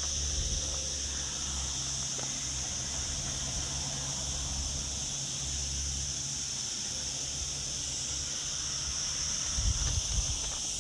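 Steady high-pitched buzzing of cicadas in the pine trees, unbroken throughout. A few footsteps on the dirt path near the end.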